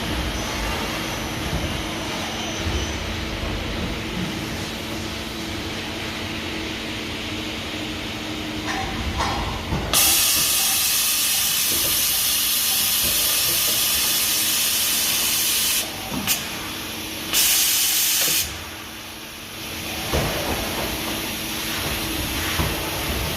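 Mori Seiki MT3000 CNC multitasking lathe running with a steady hum. About ten seconds in, a loud high hiss starts suddenly and lasts about six seconds; a second, shorter hiss follows shortly after.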